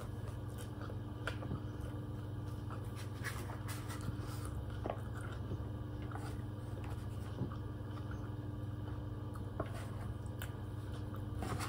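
A plastic spoon scraping and clicking against a disposable bowl in small scattered sounds while someone eats, over a steady low hum.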